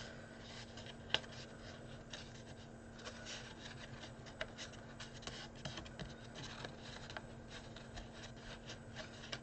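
Fingers pressing and smoothing a card stock panel onto a small card box: faint rubbing and rustling of the card, with a few small clicks, a sharper one about a second in, over a steady low hum.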